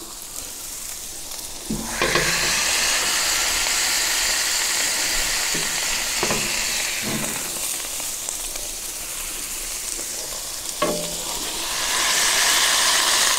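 Balls of ground beef sizzling on a hot gas griddle as they are smashed flat with a burger press. The sizzle jumps loud about two seconds in and again near the end, with a few light knocks of the press on the griddle.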